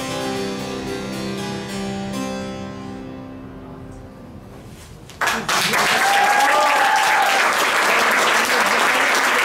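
A harpsichord plays the closing notes of a Baroque piece, its final chord ringing away and fading. About five seconds in, an audience starts applauding loudly.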